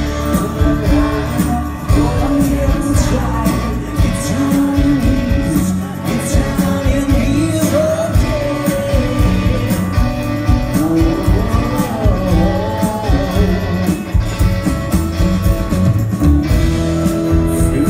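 Live rock band playing in a large hall: electric guitars and drums, with a male lead vocal singing over them.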